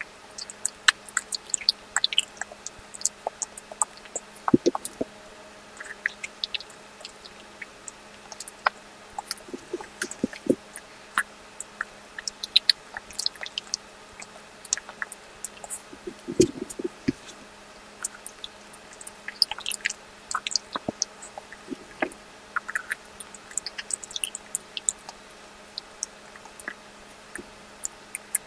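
Close-miked eating of ice cream: wet mouth clicks, smacks and chewing sounds coming as an irregular patter of short sharp ticks, with a louder cluster about halfway through.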